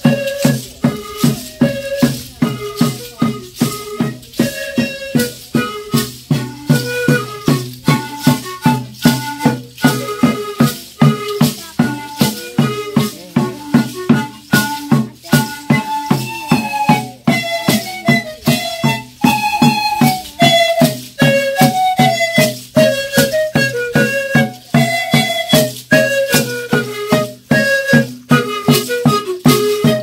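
Music carried by rattles shaken on a steady beat about twice a second, under a melody in short held notes.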